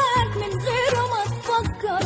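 Arabic song music: a wavering melody line over a regular bass beat.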